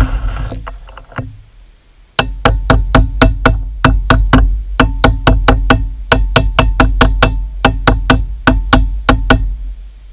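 Rapid light hammer taps on a workpiece held in a lathe's three-jaw chuck, about four a second for some seven seconds, seating the part down against a parallel before the chuck is tightened. Each tap is sharp with a short metallic ring; a brief noisy rustle fades out in the first second.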